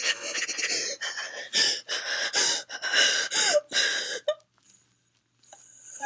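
A person gasping in a quick run of short, breathy bursts that stop about four seconds in.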